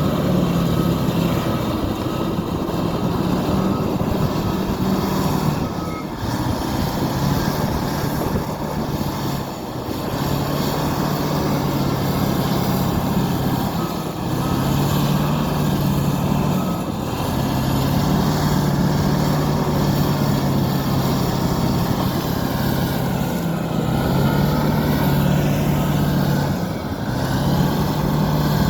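Fiat-Kobelco FD300 crawler bulldozer's diesel engine running under changing load, its pitch stepping up and down every few seconds as it works.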